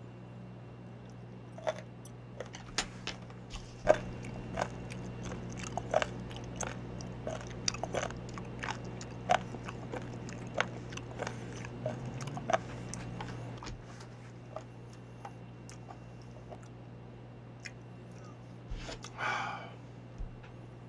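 Close-miked chewing of a mouthful of raw skate (hongeo), with irregular sharp crunches for about the first dozen seconds. A steady low hum runs underneath, and a short breathy sound comes near the end.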